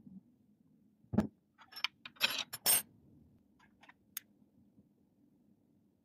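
A dull knock about a second in, then a metal teaspoon clinking and scraping against a glass jar in a few short bursts, followed by a couple of faint clicks.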